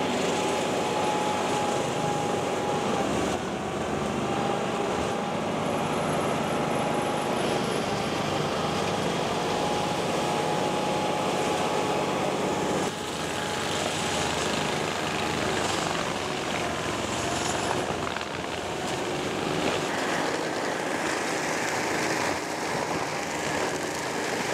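Forestry mulcher driven off the PTO of an MTZ-1221 tractor, its rotor running and shredding brush and young trees, with the tractor's diesel engine running. A steady whine sits over the noise of the shredding, which shifts slightly in level a couple of times.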